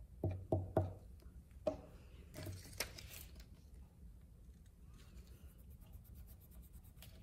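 Handling of construction paper and a glue stick on a wooden table: three quick dull knocks in the first second, a couple more single knocks, then brief paper rustling as a paper strip is laid down and pressed flat.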